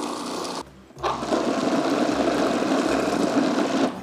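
Food processor motor running as it mixes lúcuma mousse while melted gelatin is drizzled down the feed tube. It stops for a moment just over half a second in, starts again about a second in, and cuts off near the end.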